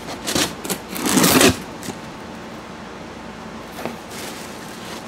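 Cardboard shipping box being opened by hand: packing tape torn off the top with a loud rip about a second in, followed by lighter cardboard scrapes and a small tap.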